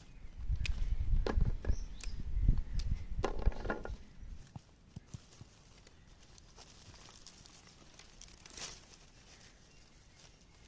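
Dry leaves and twigs rustling and snapping as they are handled, with heavy low rumble and dense crackling over the first four seconds, then only scattered faint clicks and one short rustle near the end.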